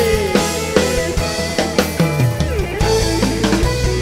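A live band plays an instrumental passage, with drums and kendang hand drums keeping a steady beat under electric keyboard melody and a moving bass line.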